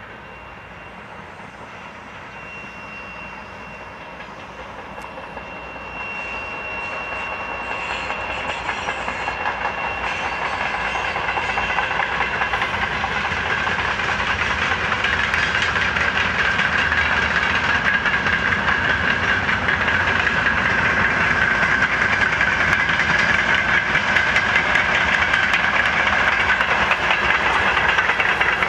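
Diesel-hauled freight train of open wagons approaching, growing steadily louder over the first dozen seconds or so, then rolling past with a steady rumble and clatter of wheels on the rails.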